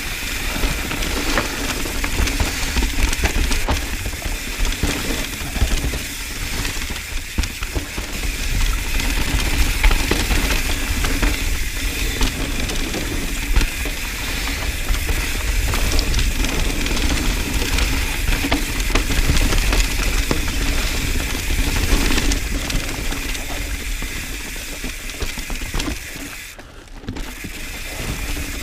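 Mountain bike coasting down dirt singletrack: the rear freehub's ratchet buzzing, tyres rolling over dirt and a steady wind rumble on the camera microphone, with a brief dip in level near the end.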